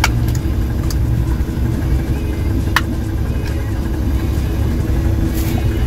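Boat engine idling steadily with a low rumble. Two sharp metallic clicks, nearly three seconds apart, come from a tin of cat food being punched with holes for prawn-trap bait.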